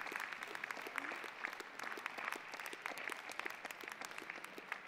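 Audience applauding, separate claps that gradually thin out and fade.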